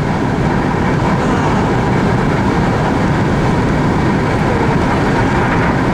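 Steady road and engine rumble inside a moving car's cabin, with tyre and wind hiss.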